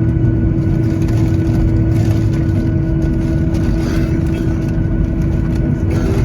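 Boeing 737-900ER's CFM56-7B jet engines and airflow heard inside the cabin: a loud, steady rumble with a constant droning tone.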